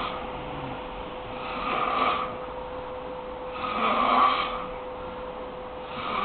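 Heavy snoring, one snore about every two seconds, three in all, the loudest about four seconds in.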